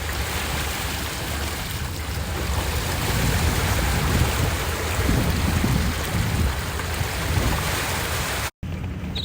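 Wind buffeting the microphone: a steady rushing noise with an uneven low rumble, growing louder in the middle.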